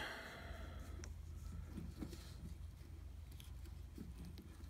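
Faint handling noises of fingers working a white insulating sleeve over a crimped wire joint: small rustles and a few light clicks over a low steady hum.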